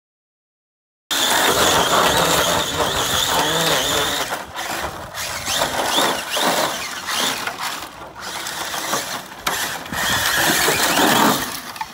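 After about a second of silence, an Arrma Infraction RC car's electric motor and drivetrain gears whine and whir loudly as it drives on loose dirt, rising and falling with the throttle.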